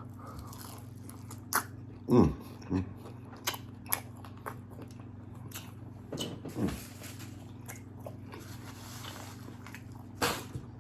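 Close-miked chewing and biting of birria tacos: scattered wet smacks and crunches, with a few short louder mouth sounds between the bites.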